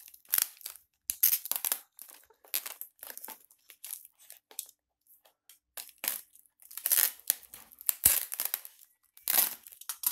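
Plastic air-column cushion wrap crinkling and rustling in irregular bursts as it is cut open with a utility knife and handled, with one sharp knock about eight seconds in.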